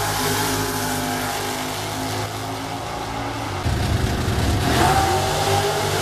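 Drag race cars' engines at full throttle down the strip. The sound gets louder about three and a half seconds in, as a car passes, and its pitch rises near the end.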